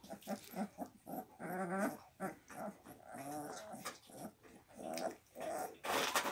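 Young Kangal puppies whimpering in a string of short cries, with a longer wavering cry about one and a half seconds in. A short, loud, noisy scuff near the end.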